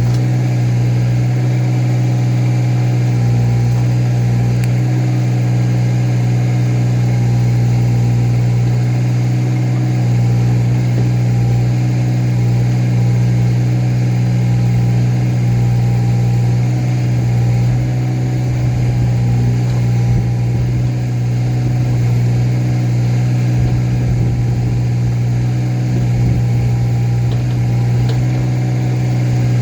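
Engine running steadily at a constant speed, with a strong, even low hum and no change in pitch.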